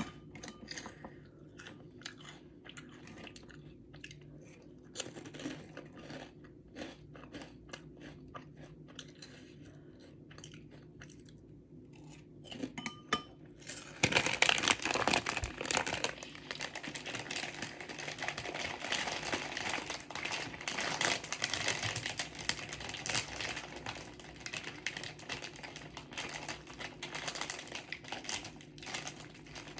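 Close-miked eating sounds: chewing and small wet mouth clicks from a person eating instant noodles, sparse for the first half. About halfway in a louder, continuous crackling noise starts and carries on to the end.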